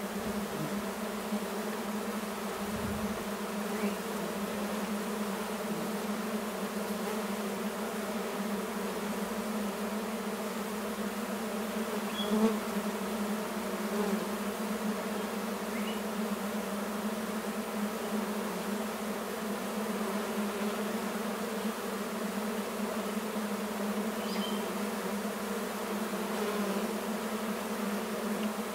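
Many honey bees buzzing in flight, a steady, even drone.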